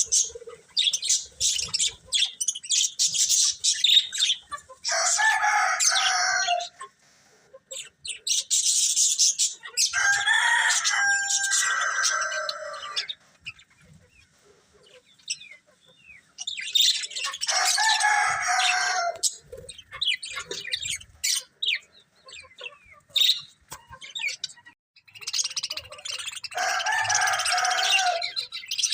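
Budgerigars chirping and twittering in quick, dense runs of high notes. Four louder, lower calls of about two seconds each break in.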